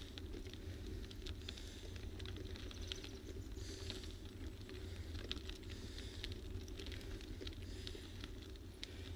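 Steady low rumble of wind and tyre noise from a moving ride, likely a bicycle, along a rough, wet paved road, with scattered crackling ticks throughout.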